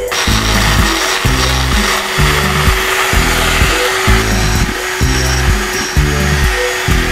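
Small handheld rotary tool running steadily with a constant motor whine as its bit grinds at the metal flange of a motorcycle oil-cooler hose fitting. Background music with a steady beat plays underneath.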